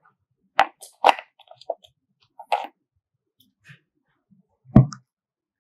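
A few light knocks and clicks, then one heavier thump just under five seconds in.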